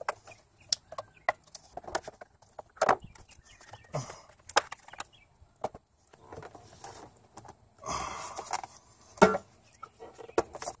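Irregular clicks, taps and knocks of plastic air-intake parts being handled and fitted: the air filter element and intake duct going back in place. A short rustle comes about eight seconds in, followed by the loudest knock.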